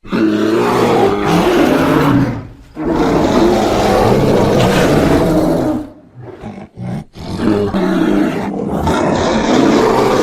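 A series of loud, rough roars, each lasting two to three seconds, with short breaks between them and a few shorter roars in the middle.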